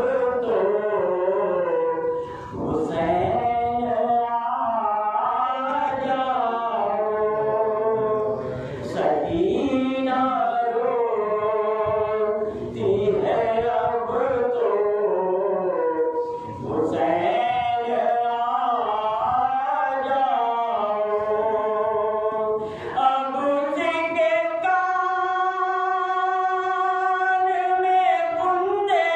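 A man singing a slow, unaccompanied devotional lament into a microphone, amplified through a loudspeaker in a small room, his voice bending through long melodic phrases. Near the end he holds one long steady note.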